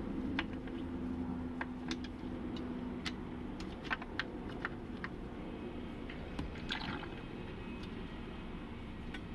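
Hydraulic steering fluid squeezed from a plastic fill bottle through a clear tube into a SeaStar helm to prime it, with scattered small plastic clicks over a steady low rumble.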